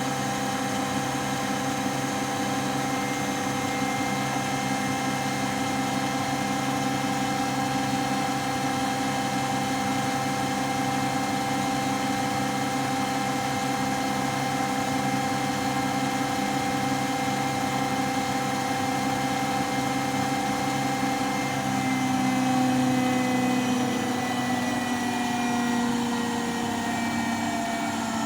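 Washing machine running with a steady whine of several tones over a hum. About three-quarters of the way through the tones slide a little lower and the sound swells slightly, as the machine changes speed.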